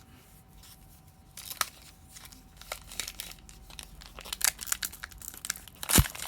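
Foil Pokémon booster pack wrapper crinkling and crackling as it is handled and pulled open, in scattered sharp bursts that grow busier, with one loud snap near the end.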